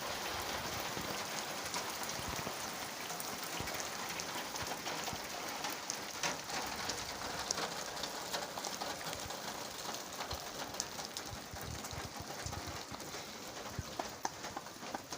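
Steady rainfall, with many individual drops ticking on nearby surfaces.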